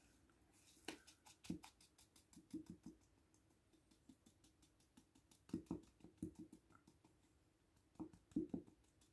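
A small plastic hair-dye bottle handled and shaken in rubber-gloved hands. It gives short bursts of quick light clicks with soft knocks, three times.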